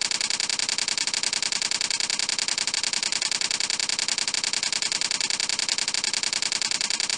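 Typing sound effect: rapid, even clicking of keys, starting abruptly.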